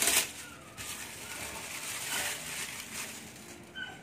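Plastic wrap being pulled off a hard plastic tool case, crinkling and rustling, loudest right at the start.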